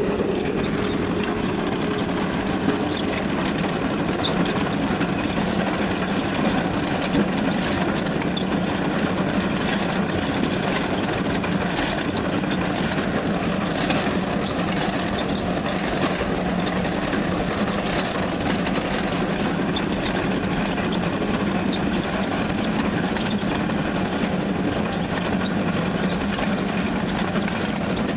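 Tesmec TRS975 chain trencher running steadily, its engine and digging chain cutting a trench through limestone and cobble stone.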